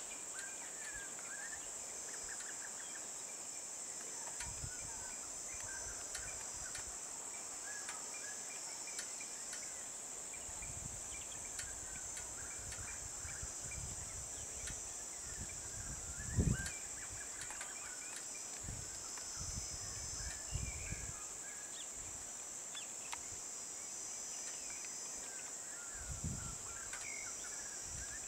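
Steady high-pitched drone of insects in forest, with scattered short bird chirps over it. A few brief low thumps break in, the loudest about halfway through.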